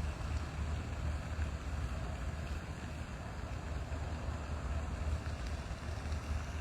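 Steady low rumble of a car, with a faint even hiss above it and no distinct events.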